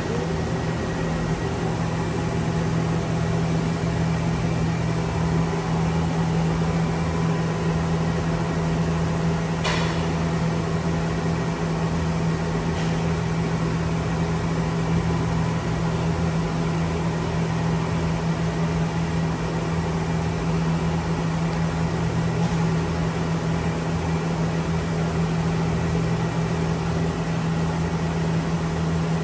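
Toshiba CNC grinder running under power: a steady mechanical hum with a strong low tone. A single sharp click about ten seconds in.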